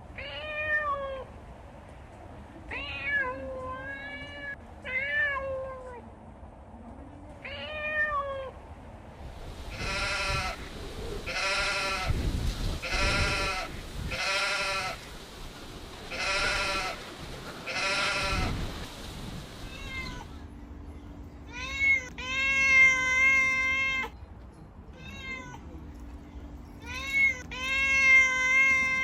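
Kittens meowing again and again: short meows in the first few seconds, then a run of six quick, harsher calls, and near the end two longer, drawn-out meows.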